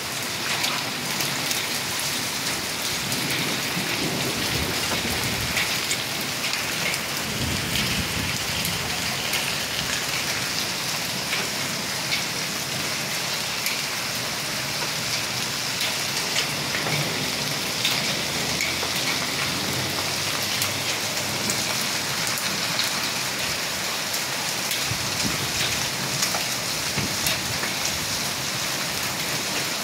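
Hailstorm: small hailstones mixed with rain falling steadily on concrete paving, a dense hiss with many sharp ticks of individual stones striking.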